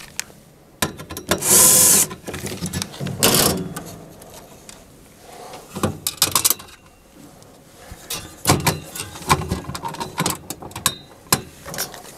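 Machine screws and nuts being started by hand on a sheet-metal cabinet panel: scattered small metallic clicks and rattles. Two brief, louder scraping rustles come in the first few seconds.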